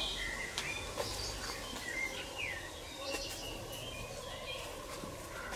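Small birds chirping and calling in short notes and quick slides over steady outdoor background noise, with a few faint clicks.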